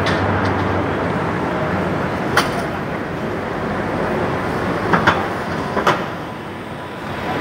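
Street traffic noise with a double-decker bus passing close by, broken by a few short sharp clicks, one about two seconds in and three more between five and six seconds in.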